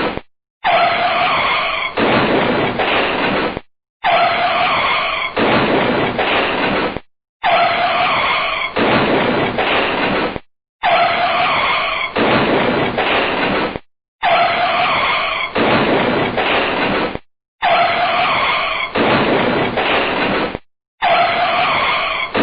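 A car braking hard, its tyres skidding with a screech. The same roughly three-second sound effect repeats about every three and a half seconds, with a short silence between each.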